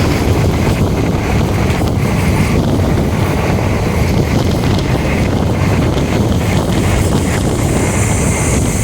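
Steady rumble of a moving train, with wind buffeting the microphone.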